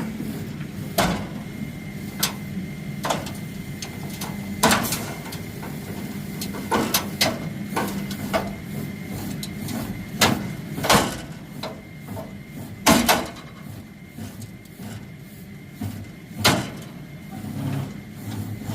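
A truck engine running steadily under a string of irregular sharp metal clanks and knocks, about a dozen, the loudest about 13 seconds in. It is the sound of a bent derby-truck frame being pulled straight under load until it breaks free.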